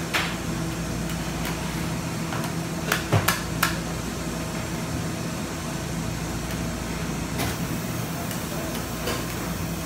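Metal spatulas tapping and scraping on the steel cold plate of a rolled-ice-cream freezer, with a quick cluster of sharp taps about three seconds in, over a steady machine hum.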